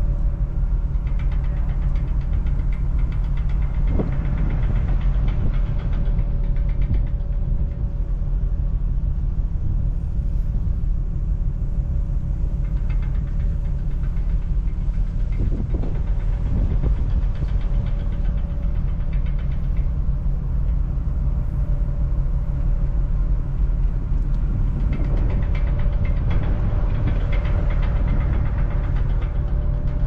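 A ferry's engines and machinery running with a steady low rumble and a constant mid-pitched hum. Brief knocks come about four seconds in and again around sixteen seconds.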